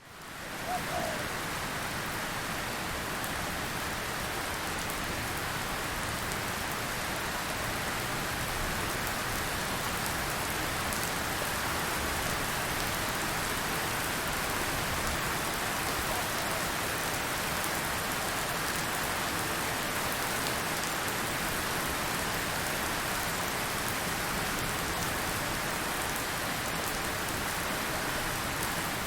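Steady rain falling, an even hiss with many small drop hits on a surface, fading in at the very start.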